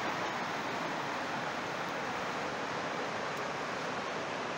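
Steady rushing of white water from river rapids, an even hiss with no rhythm or breaks.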